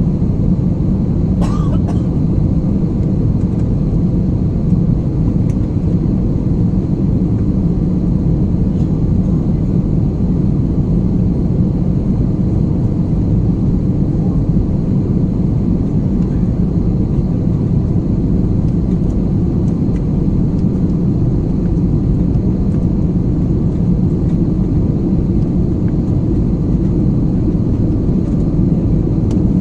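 Steady cabin rumble of an Airbus A320-family jet airliner: engine and airflow noise heard from inside the cabin, with one brief click about a second and a half in.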